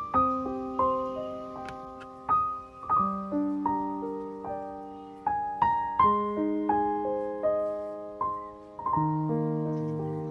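Background piano music: a gentle melody of single struck notes over held chords, each note fading after it is played.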